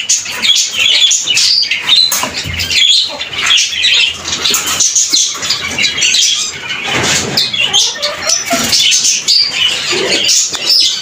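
Fisher's lovebirds chattering and squawking in rapid, overlapping high chirps, with short flutters of wings and rattling of the wire cage as a hand reaches into their clay-pot nest, flushing the birds out.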